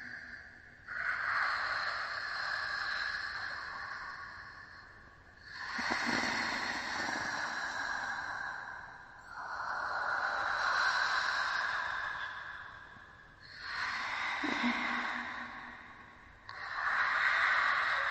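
Ghostly whispering sound effect: about five swells of hushed, airy noise, each rising and fading away over three to four seconds, one after another.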